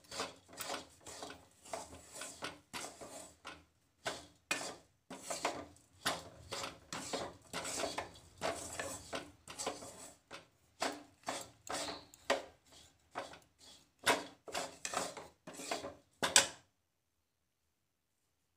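A metal spatula scrapes and stirs a dry, crumbly bread-crumb and malai mixture against the sides of a metal kadhai while it roasts. The strokes are quick and irregular, and they stop abruptly about sixteen seconds in.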